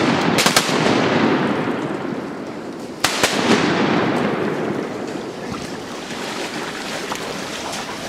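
Shotguns firing at ducks: two shots close together about half a second in and another about three seconds in, over a steady rushing noise that slowly fades.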